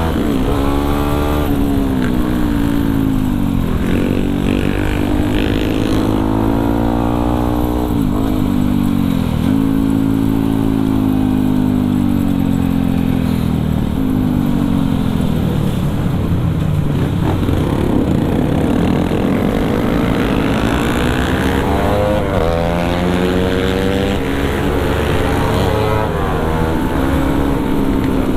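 Yamaha WR155R's single-cylinder 155 cc engine under way, its pitch climbing and dropping back again and again as the rider accelerates and shifts through the gears. It eases off around the middle, then picks up again. Steady wind noise runs underneath.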